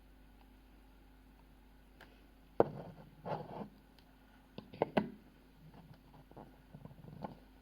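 Handling sounds: after a quiet start, a few sharp knocks and clicks with short rustles in between, the first knock about two and a half seconds in being the loudest.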